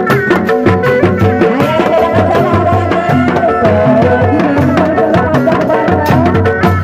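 Sundanese street procession music: hand-beaten kendang drums and a large pole-slung drum playing a steady, dense rhythm under a melody that holds a long wavering note in the middle.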